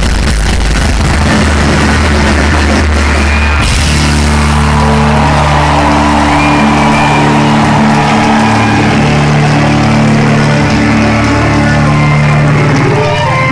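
Live rock band playing loud, in an overloaded concert recording with poor sound. The music changes about three and a half seconds in, from a low droning sound to sustained higher notes.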